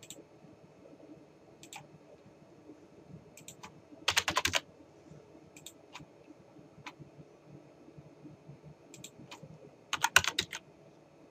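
Typing on a computer keyboard, heard as scattered single key clicks and two quick runs of keystrokes, one about four seconds in and one near the end as a password is entered.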